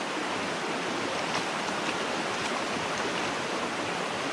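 Steady rushing water of a small mountain trout stream, with a few faint ticks.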